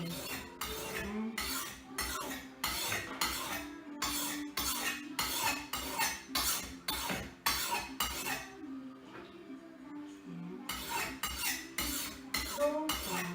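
Steel kitchen knife blade scraping back and forth across a water-soaked sharpening stone, about two strokes a second. The strokes pause for a couple of seconds about two-thirds of the way in, then start again.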